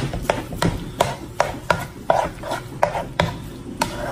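A plastic spoon stirring and breaking up raw ground meat in a nonstick pot, knocking and scraping against the pot's sides and bottom about three times a second.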